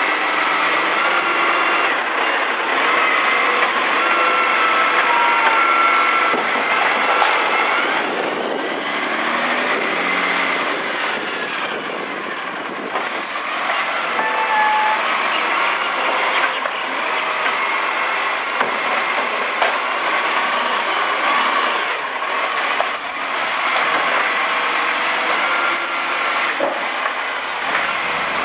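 Automated side-loader garbage truck running, with its engine and hydraulics whining steadily as the lifting arm works. Several short hisses come every few seconds.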